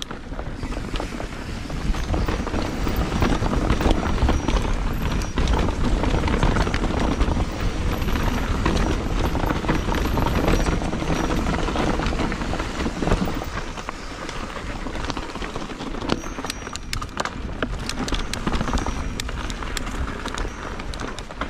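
Ibis HD5 full-suspension mountain bike riding dirt singletrack: tyres rolling over dirt and rock, the bike rattling with sharp clicks and knocks, and wind rushing over the action-camera microphone. The noise is loudest through the first half and eases somewhat in the second half.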